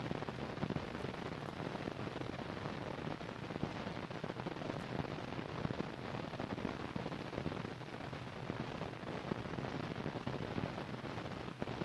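Steady crackling hiss of an old film soundtrack's surface noise, fine clicks and pops over a hiss, with no narration or music.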